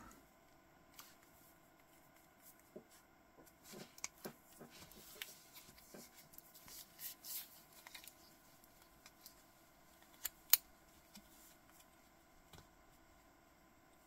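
Faint handling sounds of a sailcloth watch strap and a steel deployant clasp being worked by hand: light rustling and small scattered clicks, with one sharp click of the clasp about ten seconds in.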